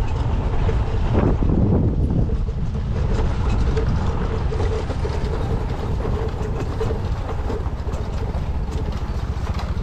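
Vehicle engine running under a low, continuous rumble of road noise while driving slowly over a rough, bumpy dirt track, with a steady hum throughout.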